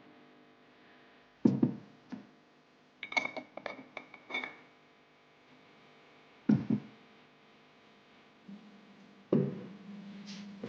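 Faint background music with a few sharp knocks and, a few seconds in, a quick run of light ringing clinks, like objects being handled and set down.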